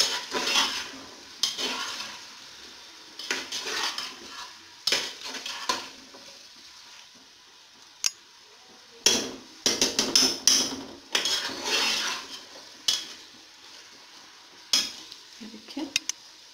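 A metal spoon scraping and clinking against the inside of a metal pressure cooker as chicken and fried onions are stirred in hot oil, in irregular strokes with sharper clinks, over a low sizzle of frying.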